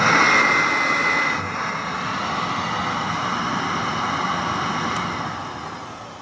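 1938 Singer R4D vacuum cleaner running, a steady motor whine with a rush of air. It drops a little in level after about a second and fades away near the end.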